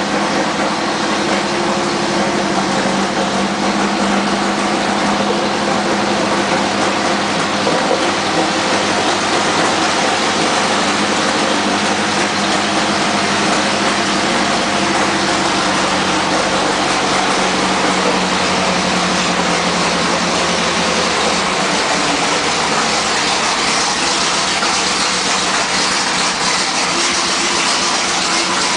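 M4A3 Sherman tank's Ford GAA V8 engine running steadily while the tank drives slowly on its tracks, a loud, even mechanical noise.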